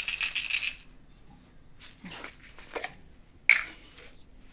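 Pills rattling inside a pill bottle as it is shaken for about a second. A few faint clicks follow, and one sharper one near the end.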